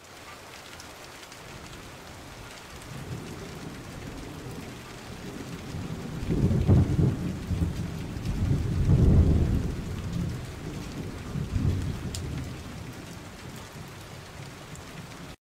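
Steady rain falling, with rolling thunder that swells to a loud rumble between about six and ten seconds in and rumbles once more near twelve seconds.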